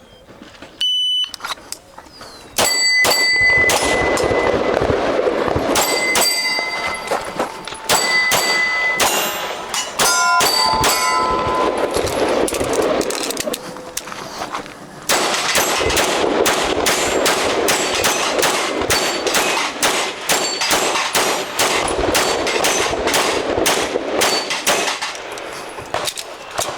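A shot timer beeps once, about a second in. A string of rapid pistol fire follows, with steel targets ringing on hits in the first part. After a short lull the shooter fires a faster, denser run that continues to near the end.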